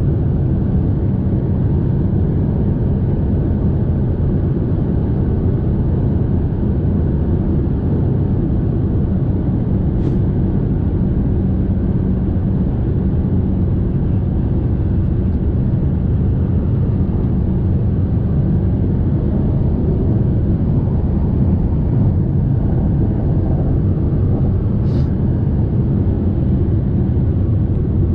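Fiat Toro Volcano pickup's 2.0 turbodiesel cruising at steady highway speed: an even, unchanging low drone of engine and road noise.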